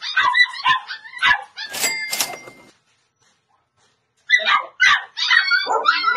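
Dogs barking and yipping in short, quick calls, with a short noise about two seconds in, then dead silence for about a second and a half before the yapping resumes.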